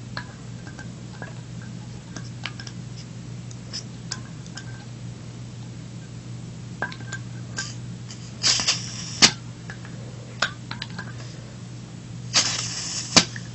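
Small clicks and taps, then two short hisses of propane about four seconds apart, each ending in a sharp click, as a WE 1911 gas-blowback airsoft pistol magazine is filled through a propane adapter. The magazine is overfilled and lets a lot of gas escape. A steady low hum sits underneath.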